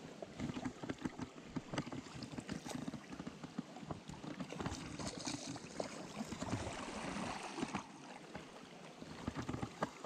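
River water sloshing and splashing, with many small clicks and knocks running through it and a brief hissing splash about halfway through.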